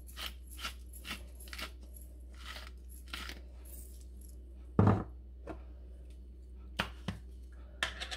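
Peppercorn grinder being turned over a bowl, grinding with even clicks about twice a second that stop after a second or two; a single loud knock about five seconds in, then a few light clicks and taps near the end.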